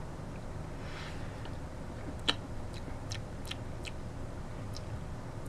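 Spoon stirring a thick stew in a pot, clinking and scraping against the pot now and then. One sharper clink comes a little past two seconds in, followed by several lighter ticks, over a low steady hum.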